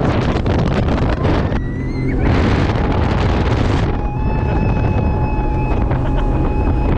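Boat under way at speed: heavy wind buffeting the microphone over a steady low rumble, with a faint steady whine.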